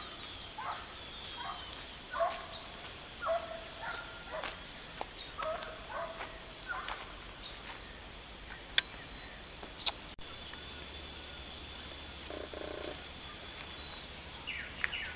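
A yard full of birds calling, blue-black grassquits among them: many short, quick chirps and lower repeated calls, busiest in the first half, over a steady high insect drone. Two sharp clicks come about nine and ten seconds in.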